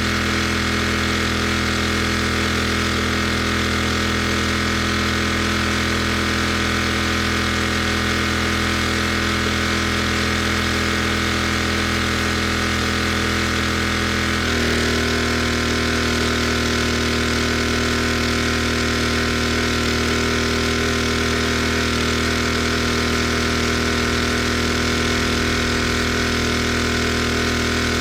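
Gas pressure washer engine running steadily, its pitch stepping up slightly about halfway through.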